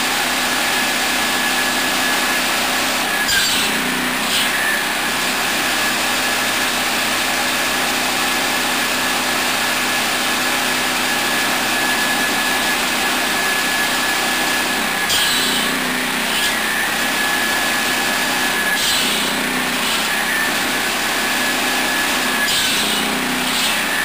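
Swing saw with a 700 mm circular blade, driven by a 13 hp petrol engine, running steadily with a high blade whine. About four times the whine dips briefly as the blade bites through a piece of firewood.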